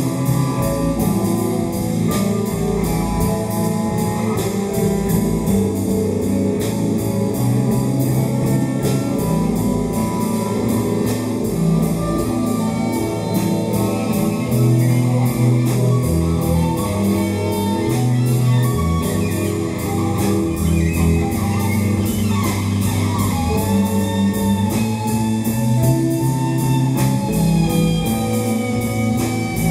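Live band of cello, guitar, electric bass and drum kit playing a rock song, with a steady drum beat at about four hits a second under the strings.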